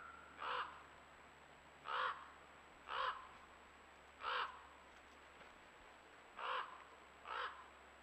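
A crow cawing: six short, harsh caws at uneven intervals, about a second or two apart.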